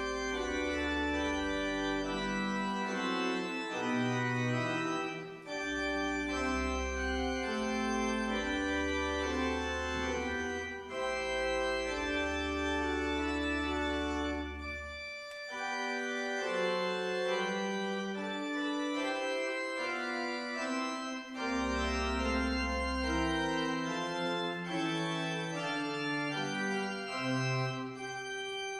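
Church organ playing a slow piece of several voices at the opening of a service, with deep bass notes held for a few seconds at a time that drop out and come back.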